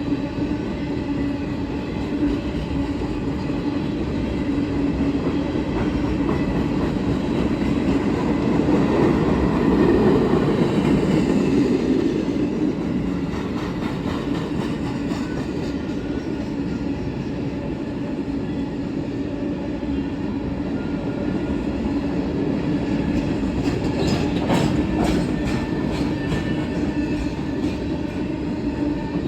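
Loaded freight train of steel-slab cars rolling past: a steady rumble of wheels on rail with a constant tone, swelling about ten seconds in. About twenty-four seconds in comes a quick run of clicks as wheels cross rail joints.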